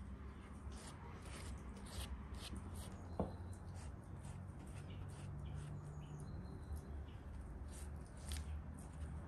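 Faint, irregular light strokes and dabs of a silicone pastry brush spreading beaten egg over risen dough balls on a parchment-lined baking tray, with one sharp click about three seconds in.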